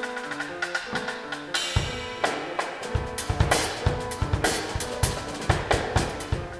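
Music: a short stepped melody of pitched notes, then a loud hit about a second and a half in, after which a drum-kit beat with kick and snare runs on.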